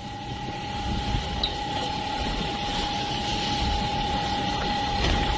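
Steady machinery running with a constant whine over a low rumble and a hiss: the patrol boat's engines and the fire pumps driving its water cannons, with the jets spraying.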